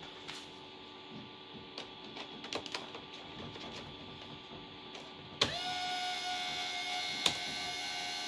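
Compaq LTE Elite 475CXL laptop in its SmartStation docking station during boot: a few faint clicks, then about five and a half seconds in a sharp click and a steady mechanical whine of several fixed tones that keeps running, a motor spinning up in the machine.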